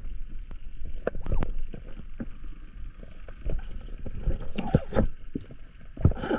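Underwater sound picked up by a spearfisher's camera while diving: a muffled rumble of water moving past the housing, with irregular soft knocks and clicks and two brief brighter rushes, one about five seconds in and one just before the end.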